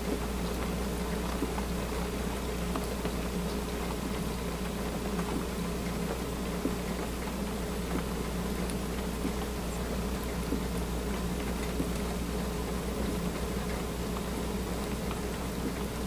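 Light rain pattering, with scattered small ticks, over a steady low hum.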